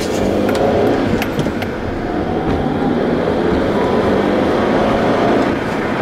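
Inside a manual Honda Accord on the move: a constant sound from a worn-out clutch disc, its friction lining gone so that the metal rivets rub on the flywheel while the pedal is up, over steady engine and road noise. The pitch rises slowly.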